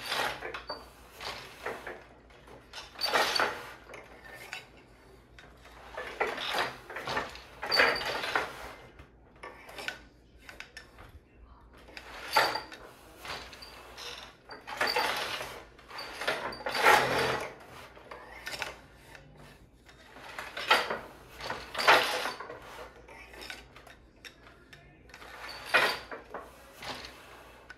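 Hand loom being woven on: a shuttle is thrown through the shed, the beater is pulled against the cloth, and the shafts are changed for the next pick. It comes as a string of wooden knocks and light metallic clinks from the reed and heddles, repeating every one to three seconds.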